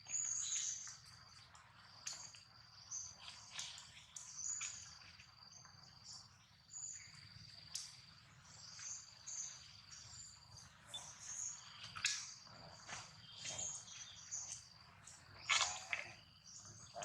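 A steady high-pitched insect drone that breaks off now and then, with short high bird chirps repeating over it. A few short sharp sounds are scattered through, the loudest about fifteen and a half seconds in.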